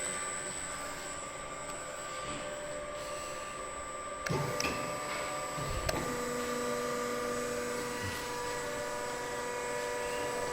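Steady industrial machine hum with several fixed tones. There are two short clunks about four and six seconds in, after which a lower steady tone joins the hum.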